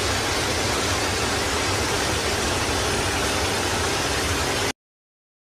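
Loud, steady static hiss like white noise, even and unbroken, cutting off abruptly near the end.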